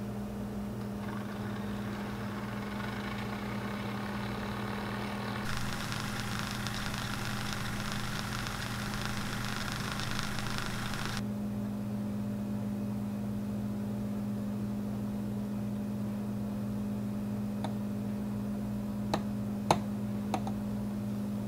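Nespresso Aeroccino 3 milk frother running, a steady electric hum as its whisk spins and froths the milk. A brighter hiss rides over the hum from about five to eleven seconds in, and a few light clicks come near the end.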